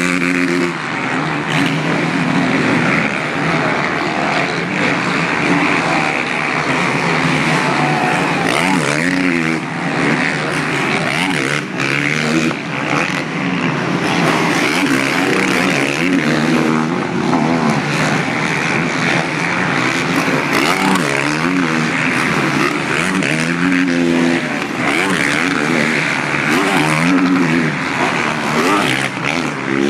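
Motocross bike engines revving on the track, loud and continuous, the pitch climbing and dropping again and again as riders throttle up and shift over the jumps.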